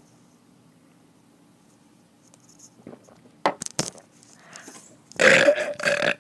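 A loud, long belch with a steady pitch, brought up from a shot of fizzy soda, starting about five seconds in. A couple of short sharp knocks come a little past halfway, before the belch.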